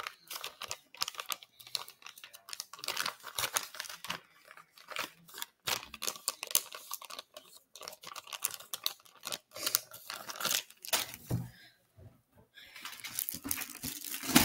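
Plastic bait package crinkling and rustling in irregular bursts as it is handled and torn open, with a short quieter gap near the end and a sharp, louder knock right at the end.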